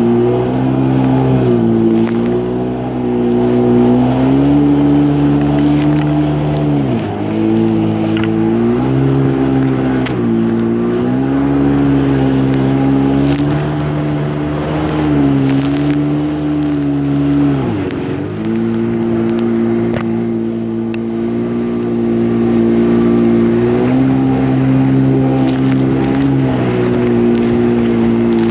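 Yamaha jet ski engine running under way, its revs sagging and picking up again several times, most deeply about seven and eighteen seconds in.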